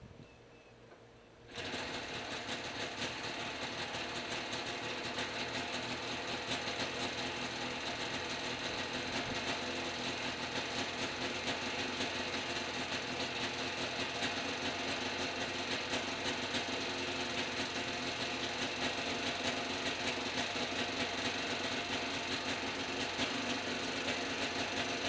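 Small carbureted engine of a backpack helicopter starting abruptly about a second and a half in, then running steadily with a fast, even beat.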